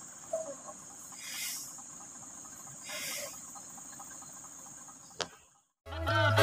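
Quiet outdoor ambience of insects: a steady high drone with two short louder swells of buzzing, a single click about five seconds in, a brief silence, and then music starting near the end.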